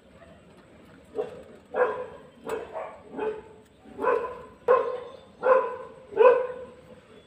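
A dog barking, about eight barks in quick succession starting about a second in.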